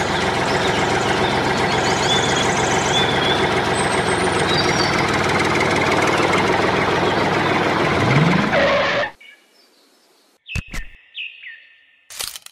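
An engine runs steadily with birds chirping over it. About nine seconds in it cuts off abruptly, just after a short rising tone. A few sharp clicks and brief chirps follow.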